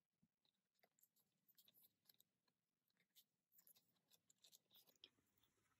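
Faint crinkling and clicking of plastic card sleeves and binder pocket pages being handled as photocards are slid into the pockets.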